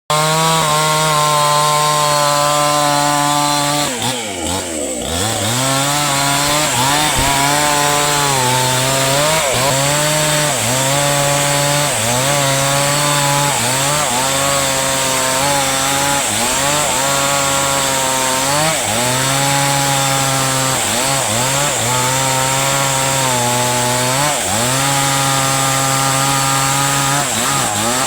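Chainsaw cutting into a tree trunk, its engine running at full throttle and dropping in pitch again and again as the chain bogs in the wood, recovering between cuts; the deepest sag comes about four seconds in.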